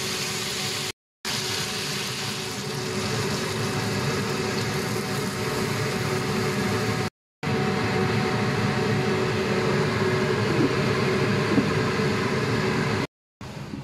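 Pork sizzling in a wok, over a steady mechanical hum. The sound drops out for a moment three times at edit cuts.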